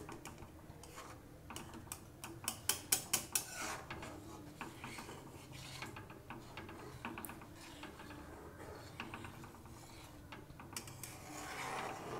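Metal spatula scraping and clinking against a metal kadai as thin oats porridge is stirred, in repeated strokes. The loudest is a quick run of strokes about two to three seconds in.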